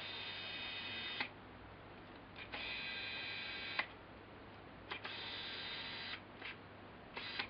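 Sigma 105mm macro lens's autofocus motor whirring as it drives focus back and forth: three runs of just over a second each, each ending in a click, with short clicks between them and a fourth run starting near the end. The autofocus is neither very quick nor very quiet.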